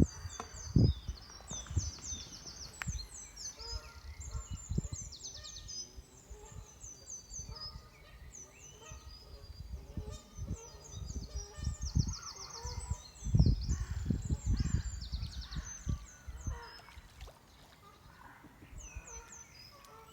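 Birds singing and calling, with many repeated high chirps and short trills, and some fainter lower calls. Wind buffets the microphone in low rumbling gusts near the start and again about two thirds of the way through.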